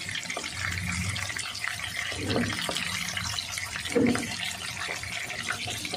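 Smoked fish pieces sizzling as they fry in oil in a nonstick wok, with a spatula now and then scraping and turning them.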